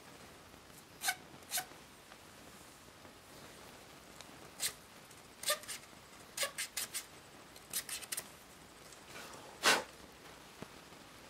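Short scratchy strokes of a paintbrush scrubbing weathering powder onto a plastic HO-scale covered hopper, coming singly and in quick clusters of three or four, with one louder, longer stroke near the end.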